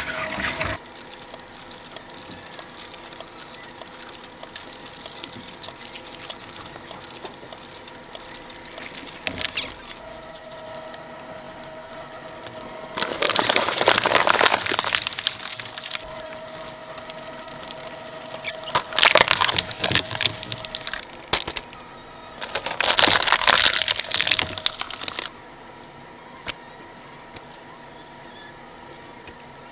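Shredder running with a steady hum, broken three times by loud crackling and tearing as material is fed through its blades.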